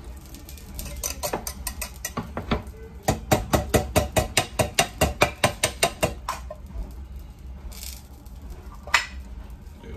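A rapid, even run of light metallic clicks and taps, about six a second, lasting several seconds, then one sharp click near the end: tin cans of black beans being handled and emptied into a metal cooking pot.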